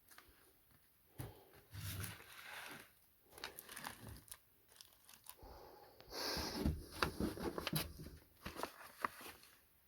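Packaging being handled and torn open, with irregular crinkling, rustling and small clicks and knocks.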